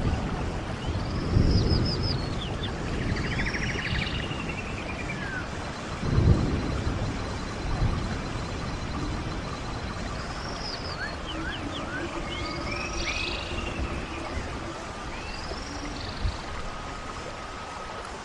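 Steady rush of a running stream with birds chirping over it in many short, downward-sweeping calls. A low rumble comes about a second and a half in, and another around six seconds in.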